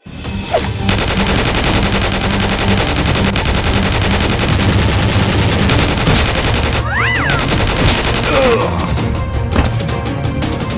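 Dubbed automatic-gunfire sound effect, a rapid continuous stream of shots, laid over the firing of Nerf blasters with background music. The firing breaks off briefly about seven seconds in, where a short rising-and-falling tone is heard, then starts again near the end.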